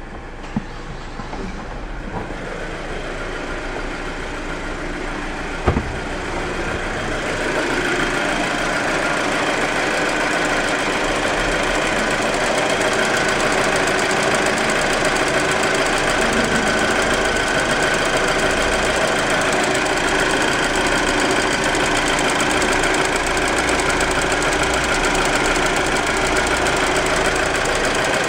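Audi A4 2.0T turbocharged four-cylinder engine running with a fast, even knocking noise that builds up over the first several seconds and then holds steady. The owner wonders whether it is valve knock.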